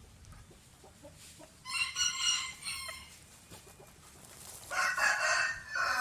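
Rooster crowing twice, each crow lasting about a second, the first near the start and the second near the end.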